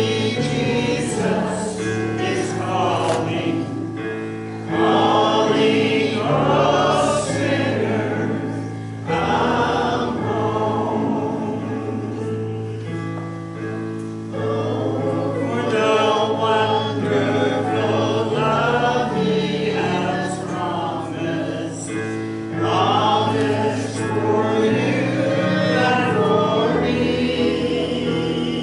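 Church congregation singing a hymn together over instrumental accompaniment, whose low sustained notes change every few seconds under the sung phrases.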